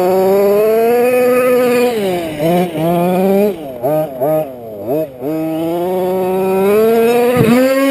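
The Losi 5ive-T's Rovan LT305 30.5cc two-stroke gas engine is running at high revs, held fairly steady for the first couple of seconds. It is then blipped up and down several times in quick succession, and opened up again. Near the end the revs drop sharply and come straight back up.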